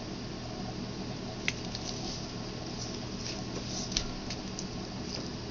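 Acrylic paint squeezed from a plastic squeeze bottle into a small pour cup: soft wet squishes and a few small clicks, heard over a steady low hum.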